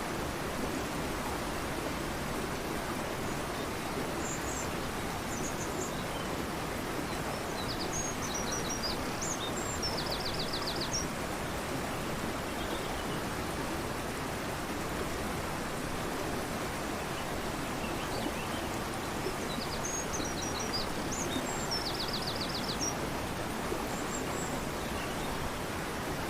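Fast-flowing river rushing steadily, with a songbird singing high over it: a short phrase a few seconds in, then the same song twice, each ending in a quick trill of about seven notes.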